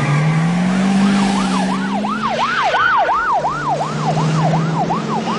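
Emergency vehicle siren in a fast yelp, rising and falling about three times a second, coming in about a second and a half in, over a car engine.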